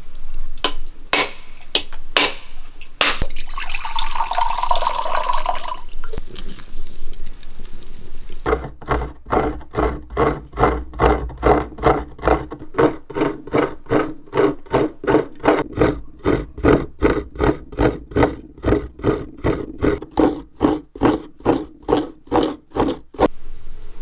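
Hands working food by hand over a clay plate, making a steady, regular series of strokes at about three a second. A few scattered clicks and a short noisy stretch come before the strokes begin.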